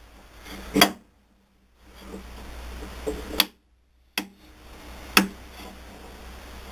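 Steel lathe spindle being pushed by hand through the bull gear and cone pulley in a South Bend 9A headstock: four short, sharp clicks and knocks spread across a few seconds as the parts shift and seat.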